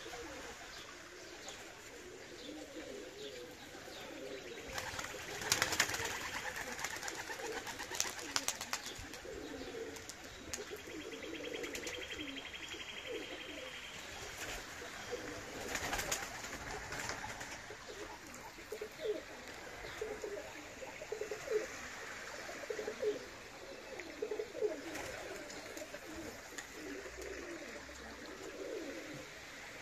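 Domestic pigeons cooing over and over in low, throaty calls. A few brief clattering noises stand out, about five seconds in and again near sixteen seconds.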